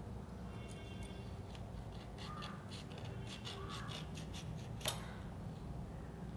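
Raw green mango being cut on the curved blade of a boti, a floor-mounted kitchen blade: a run of quick crisp cutting clicks in the middle, then one sharper click near the end as the mango gives.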